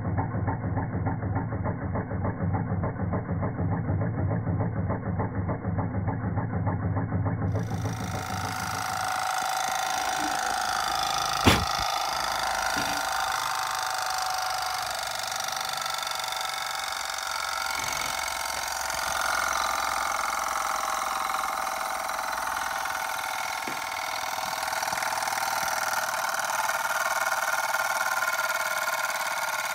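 SteamCo STC-01 model steam engine running, its cylinder giving fast, even chuffing beats several times a second. About 8 s in the sound changes to a steady hissing whir, with one sharp click a few seconds later.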